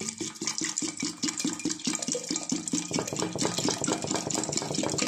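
Water glugging out of the neck of a plastic bottle into an aluminium pressure cooker pot of rice, dal and vegetables, in rapid, even glugs.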